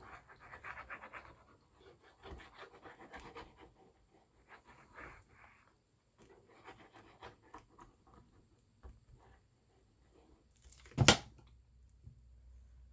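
Paper being handled and rubbed: faint scratchy rustling and small clicks as glued paper is pressed and smoothed, with one sharp knock about eleven seconds in.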